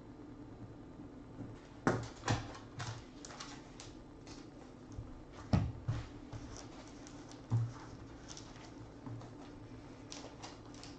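Handling noise: a scattered series of light clicks and knocks as hard plastic card holders are picked up and set down on a tabletop, over a faint steady hum.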